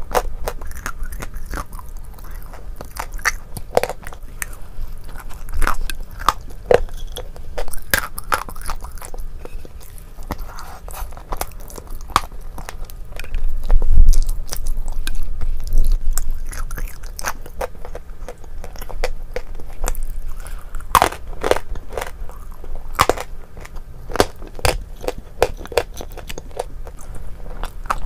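Close-miked chewing and biting of a creamy dessert with crunchy pieces, a run of sharp, irregular crunches with a louder stretch about halfway through.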